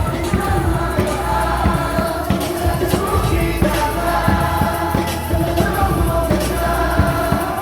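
Baseball stadium cheer song playing over the loudspeakers, with many voices singing in unison over a steady, regular beat.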